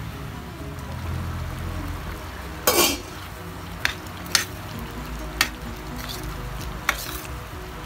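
A metal spatula stirring a pot of simmering stew, scraping and clinking against the aluminium pot: a longer clatter about three seconds in, then four short sharp clinks.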